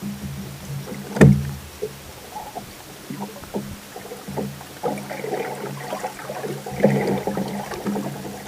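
Water splashing and lapping against a fishing boat's hull over a steady low hum. A single sharp knock comes just over a second in, and more irregular splashing and knocking follows from about halfway through.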